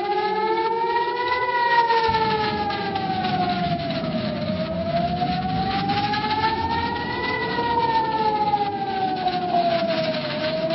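Emergency alarm siren of a mock emergency alert, several tones together wailing slowly up and down, about six seconds for each rise and fall.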